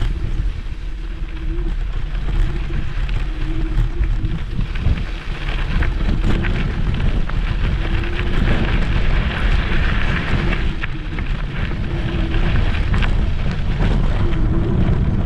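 Wind buffeting the microphone of a GoPro mounted on a moving electric scooter, over a steady rumble of tyre and ride noise on a dirt track, with a few sharp knocks. A faint hum comes and goes about once a second.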